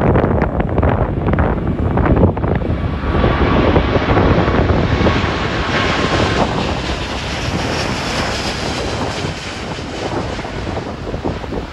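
Airbus A350-900 jetliner's Rolls-Royce Trent XWB engines at takeoff thrust as it climbs out overhead: the jet noise swells from about three seconds in, peaks with a faint whine in it, then eases toward the end. Strong wind buffets the microphone throughout.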